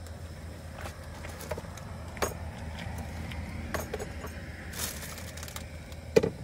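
Plastic bowl and tea packets being handled and set down: scattered light clicks, knocks and rattles, with a brief crinkle near the end, over a low steady rumble.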